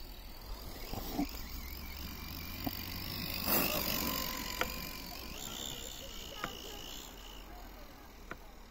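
JLB Cheetah brushless RC buggy driving through snow: the motor whine and the snow sprayed by its tyres swell as it passes close, loudest about three and a half seconds in, then a thin high motor whine as it drives away. A few sharp ticks sound along the way.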